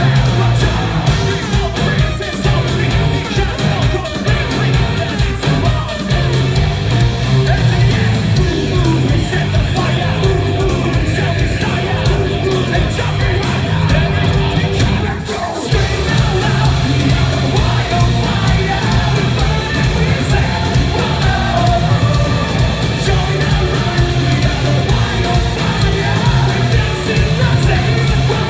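Live metalcore band playing loud, with distorted guitars, drums and screamed vocals, as heard by a handheld recorder in a concert hall. The sound drops out briefly about halfway through, then comes back.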